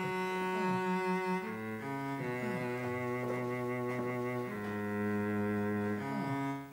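Background music of slow, held notes over a low bass line, the chord changing every second or so.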